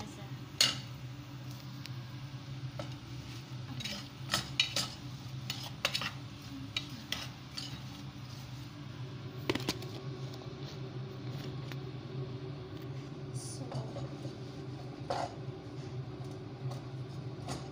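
Wooden spatula stirring chunks of squash sautéing in a cooking pot, knocking and scraping against the pot's sides at irregular moments, over a steady low hum.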